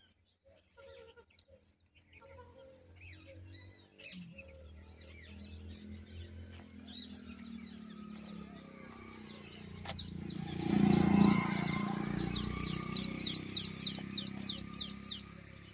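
Small birds chirping, ending in a run of quick repeated chirps, about three a second. Under them a low hum builds and a rushing noise peaks loudest about eleven seconds in.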